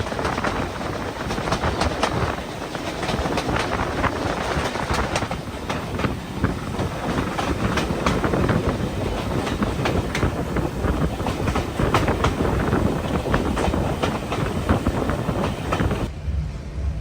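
Train running along the track, with repeated clicks from the wheels over rail joints and a steady rumble. About sixteen seconds in, the sound drops abruptly to a low rumble without the clicks.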